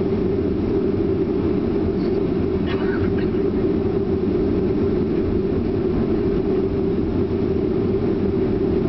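Steady low rumble inside the cabin of a Boeing 737 taxiing, its jet engines running at taxi power.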